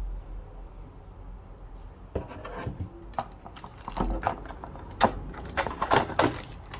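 Hands handling a plastic PVC figure and its packaging: irregular clicks, taps and light knocks, getting busier from about five seconds in.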